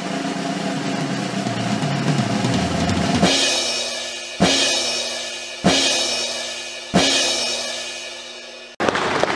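Recorded dance-pop track ending on its drums: a building drum passage, then four heavy drum-and-cymbal hits about a second apart, each left to ring out. Near the end the music cuts off suddenly into a noisy hubbub.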